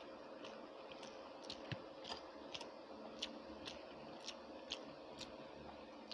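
Faint, wet clicks of chewing and mouth smacking from a person eating rice and curry with a full mouth, irregular at about two a second, over a faint steady hum.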